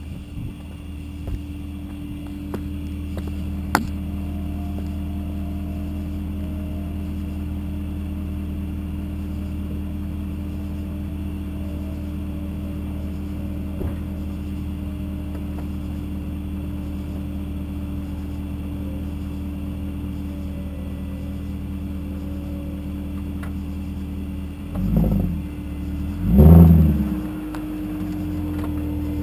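BMW E39 540i's 4.4-litre V8 idling steadily through a muffler-delete exhaust, then blipped twice near the end in two short revs. A few sharp clicks and a knock come in the first few seconds.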